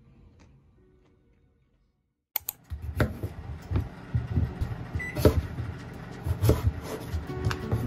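Kitchen knife cutting through a raw sweet potato on a wooden cutting board: irregular knocks of the blade striking the board. The knocks start about two and a half seconds in, after a brief near-silence.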